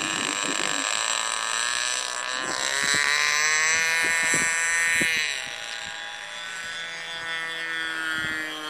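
A model airplane engine buzzing with a high, many-toned whine. Its pitch rises about two seconds in, holds, then falls and fades after about five seconds, with a few faint knocks.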